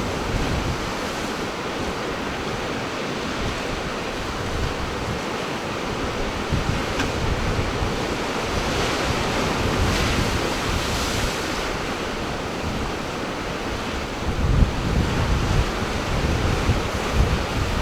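Ocean surf washing in steadily, with wind buffeting the microphone. The buffeting grows stronger about fourteen seconds in.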